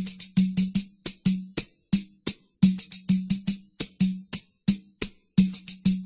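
Music: samba percussion playing alone, a syncopated partido alto rhythm of sharp hand-drum strokes about four or five a second, some strokes carrying a short low drum tone.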